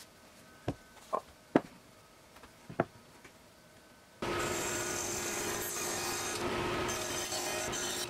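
Four sharp wooden knocks as wooden pieces are set down on a workbench. About four seconds in, a table saw starts running steadily with a faint hum, its blade working on a segmented wooden cylinder held in a jig.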